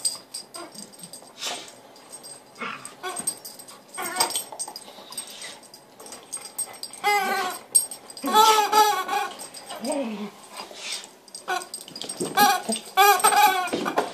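A dog chewing and shaking a squawking rubber chicken toy, giving out repeated drawn-out squawks between short scuffs and knocks. The loudest squawks bunch up about seven to nine seconds in and again near the end.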